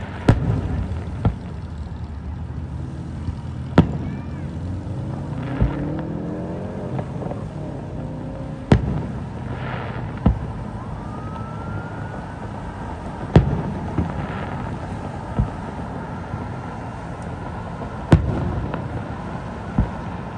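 Distant fireworks going off: about a dozen sharp bangs at irregular intervals, the strongest about a second in, near 4 s, near 13 s and near 18 s, over steady traffic noise. Between about 4 and 8 seconds an engine rises in pitch, and a thin rising whistle follows around 11 seconds.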